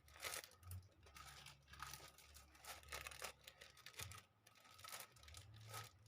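Faint rustling of sheets of colour paper being handled and shuffled, a soft swish every half second or so.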